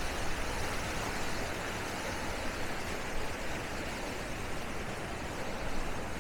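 Beach ambience: a steady rushing noise of small waves washing on the shore, with an uneven low rumble of wind on the microphone.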